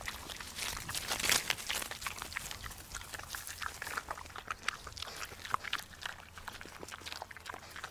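A macaque chewing food, heard as irregular crisp crunching clicks, busiest about a second in.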